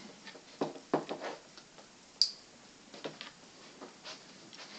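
Scattered clicks and knocks from objects being handled, with one sharp, briefly ringing click about two seconds in.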